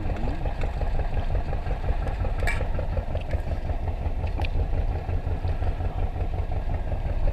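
A fishing boat's engine running steadily with a fast, even throb. A couple of light clinks of cutlery on plates come about two and a half seconds in and again about two seconds later.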